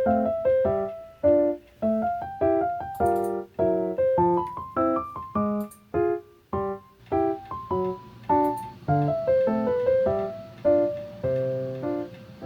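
Background piano music: a light melody of short struck notes, about two a second.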